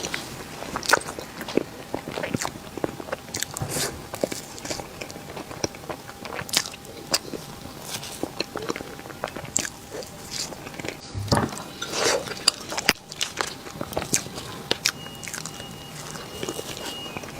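Close-up mouth sounds of a person eating Korean cake: bites and chewing with irregular sharp crunching and crackling clicks.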